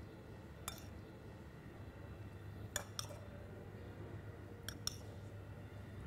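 A small metal spoon clinking against the dishes as meat filling is scooped and pressed into boiled potatoes: five short, light clinks, one about a second in, then two close pairs near the middle and near the end, over a faint steady room hum.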